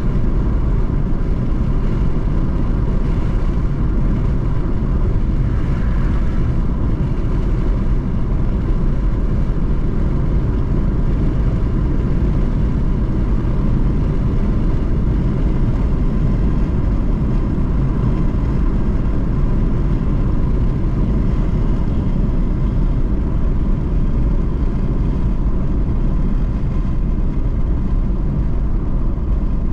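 Steady road noise heard inside a car cruising on an expressway: a low tyre and engine rumble that holds even, with a faint steady high hum over it.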